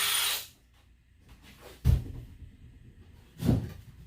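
Two short, dull knocks, about two seconds and three and a half seconds in, as pieces of wooden layout benchwork are handled during teardown. At the very start a steady hum dies away.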